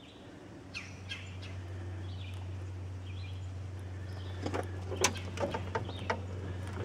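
Birds chirping now and then over a steady low hum, with a few sharp clicks past the middle.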